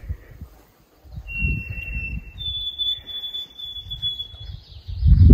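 White-throated sparrow singing: two long, pure whistled notes, the second higher and held for about two seconds. Low rumbling thumps run underneath, with a louder thump near the end.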